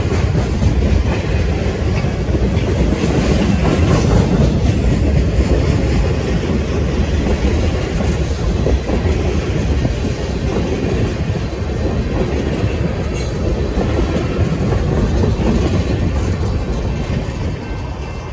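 Freight train of tank cars rolling past close by: a steady rumble of steel wheels with clickety-clack over the rail joints, fading near the end as the last cars go by.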